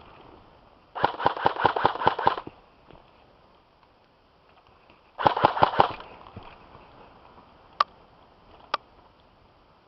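Airsoft gun firing two rapid full-auto bursts: the first lasts about a second and a half, and the second is shorter and comes about four seconds later. Two single sharp cracks follow near the end.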